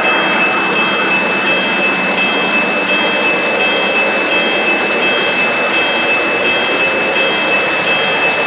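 O-gauge model freight train rolling past on three-rail track: a steady rushing rumble of wheels on rail, with a steady high whine and a fainter high tone pulsing about twice a second.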